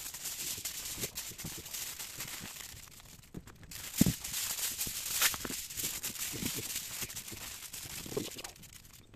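Aluminium foil crinkling and rustling under hands as it is pulled off the roll and wrapped tightly round a bundle, a dense run of small crackles with a few sharper crackles around the middle.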